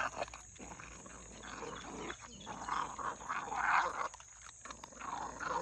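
Puppy growling in several short, rough, irregular bursts while feeding: resource guarding over the food bowl.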